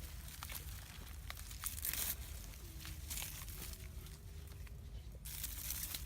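Rustling, crackling noise with scattered clicks, loudest about two seconds in and again near the end, over a low steady rumble.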